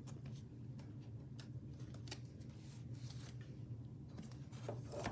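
Faint soft ticks and rustles of football trading cards being handled, shuffled and slid across one another, over a low steady hum.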